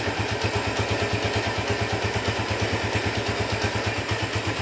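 Honda Tiger Revo 2008's single-cylinder engine idling steadily, with an even beat of exhaust pulses, about ten a second.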